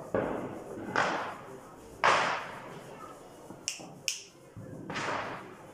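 Four sharp bangs at irregular gaps, each with a short fading tail. Two small high clicks come in quick succession just before the last bang.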